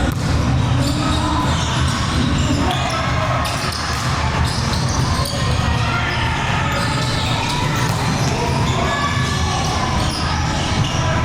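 Indoor volleyball play in a large, echoing gym: balls being struck and bouncing on the court, with players' voices in the hall.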